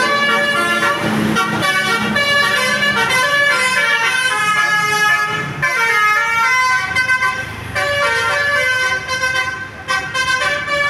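Basuri 'telolet' musical bus horn playing a tune of several notes, stepping quickly from one pitch to the next with a short break near the end.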